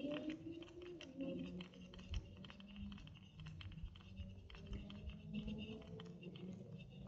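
Spinning reel being cranked on a lure retrieve: a dense run of small, irregular clicks and ticks from the reel and the hand working it.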